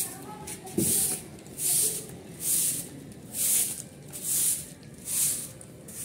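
Short-handled grass broom sweeping a dusty concrete floor in even strokes, about one swish a second, gathering dry leaves and twigs. There is a light knock about a second in.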